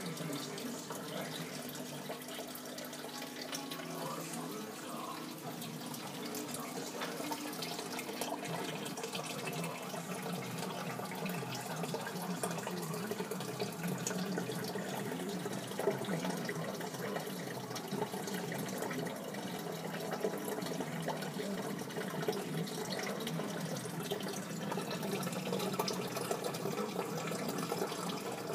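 Steady trickling and bubbling of circulating aquarium water, with many small splashy drips.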